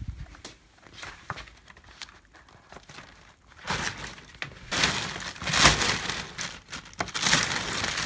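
A black plastic bin bag and sheets of paper rustling and crinkling as stacks of paper notes and a notebook are pushed down into the bag. Light handling clicks at first, then louder bursts of rustling from about halfway through.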